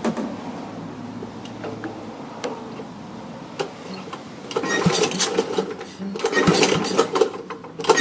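A Kohler Magnum 8 single-cylinder engine on a Troy-Bilt Horse tiller, fitted with a new fuel pump after a no-start, catches about halfway through. It then runs with its level rising and falling. Before that there is a click and faint handling noise.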